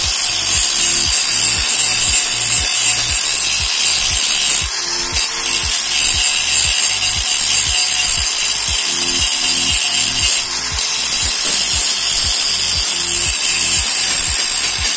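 Electric angle grinder running steadily with its thin disc cutting into the metal crankcase of a small 50 cc generator engine: a continuous high grinding screech.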